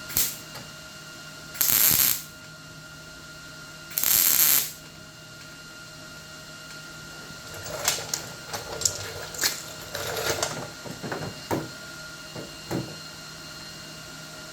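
Two short tack welds on the sheet-steel hood patch panel, each a crackling burst of about half a second, the second about two seconds after the first. These are followed by a run of light metal clicks and taps.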